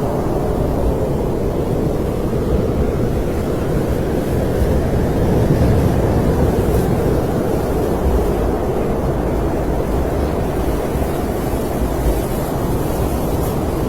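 Snowstorm wind blowing steadily: a loud, even rush with most of its weight low and a softer hiss above.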